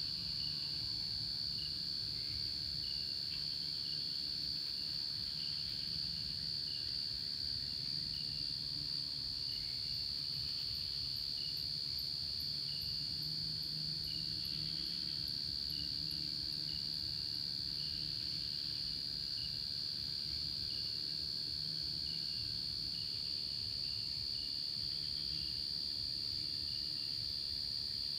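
Night insect chorus: crickets trilling in one steady high note, with a lower chirp repeating regularly, about every three-quarters of a second.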